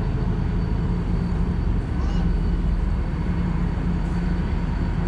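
Steady low drone of the standing passenger train's idling diesel power.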